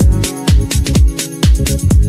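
Minimal techno / microhouse track: a four-on-the-floor kick drum with a falling pitch about twice a second, crisp hi-hat ticks between the kicks, and sustained synth and bass notes underneath.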